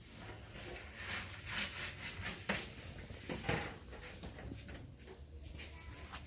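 Irregular rustling and handling noise with a few sharp knocks, the loudest about two and a half and three and a half seconds in.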